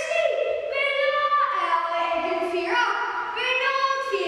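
Young voices singing a song, holding each note and stepping from note to note.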